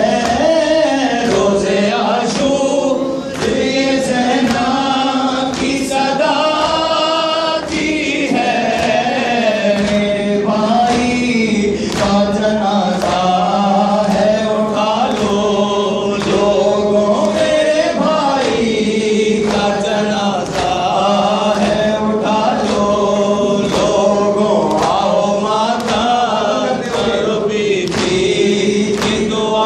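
A noha, a Shia lament, sung into a microphone by a male reciter, with a group of mourners chanting along, over a steady beat of hands striking chests (matam).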